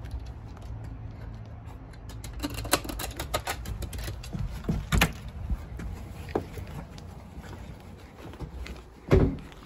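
Light clicks and knocks of a front door being handled and opened, then a louder thump near the end.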